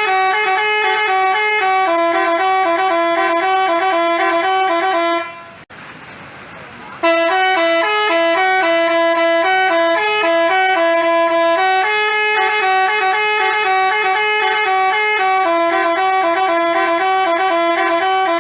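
Telolet basuri multi-tone bus horn playing a melody in quick stepped notes. It stops for about a second and a half around five seconds in, then plays on again.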